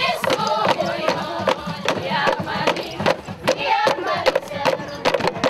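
A group singing a traditional chant, accompanied by bamboo tubes struck with sticks, the strikes falling in a steady beat of about two a second.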